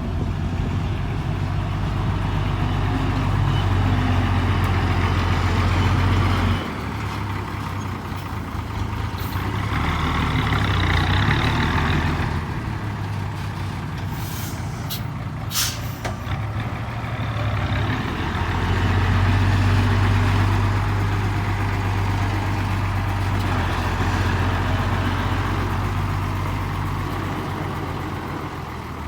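Turbocharged diesel engine of an FN527 ten-wheel dump truck with a 4-inch S-pipe exhaust, running with a loud low drone that swells and eases several times. A few short sharp air hisses come about halfway through.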